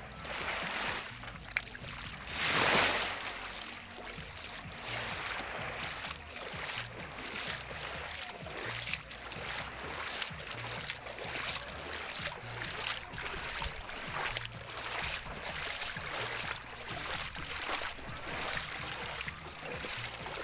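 Small waves washing and lapping on a pebble shore, with footsteps crunching on the pebbles at a walking pace. There is one louder rush of water about two and a half seconds in.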